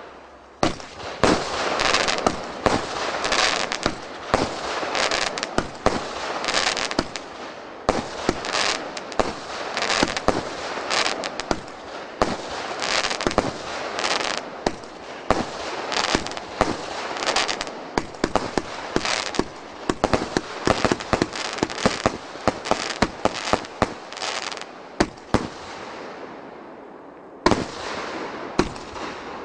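Consumer firework battery (a 36-shot cake of 1.0-inch and 1.6-inch tubes) firing in rapid succession: a dense run of sharp launch thumps and aerial bursts. It fades out briefly near the end, then starts firing again.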